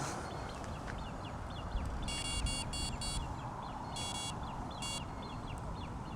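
An electronic carp bite alarm beeping in short runs: four quick beeps about two seconds in, then two more single beeps, each a high, buzzy tone. Small birds chirp faintly throughout.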